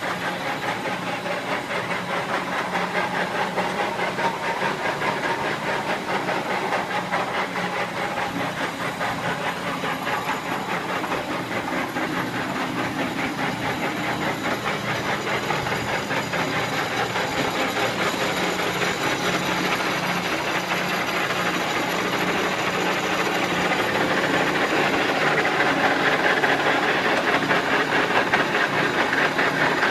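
Enterprise engine lathe with a 15 HP drive running, a steady mechanical whir over a low hum. It grows somewhat louder over the last several seconds.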